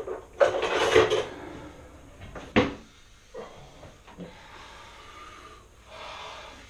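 A man blows out a loud, rough breath through his open mouth, his mouth burning from chilli-hot wings. About two seconds later comes one sharp knock as a glass is set down on the wooden table, followed by faint handling of the plate of wings.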